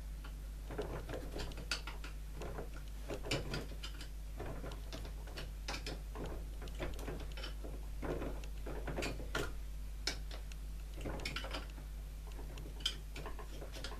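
Irregular clicks, ticks and small knocks of a rubber multi-V drive belt being levered off the motor pulley of a Qualcast electric lawn mower, with hands and pliers against the plastic housing. A steady low hum runs underneath.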